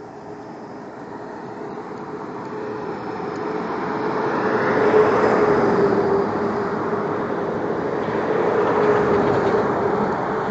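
A vehicle running close by with a steady hum. It grows louder to a peak about five seconds in and stays loud.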